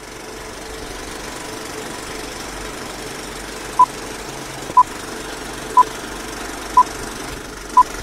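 Film countdown leader sound effect: a steady rattling projector-and-crackle noise, with short high beeps once a second starting about four seconds in, five in all.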